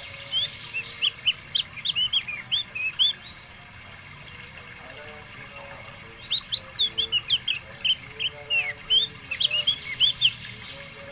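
Pet songbird singing: two runs of quick, high chirping notes, the second starting about six seconds in.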